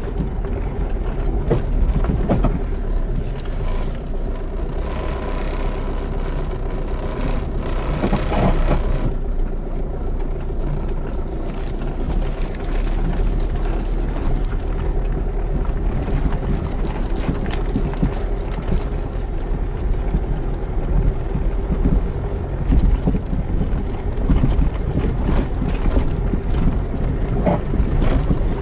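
Diesel car driving, heard from inside the cabin: a steady low engine and road rumble with scattered short knocks. The gear lever shakes with the engine, a symptom of a broken rear engine mount.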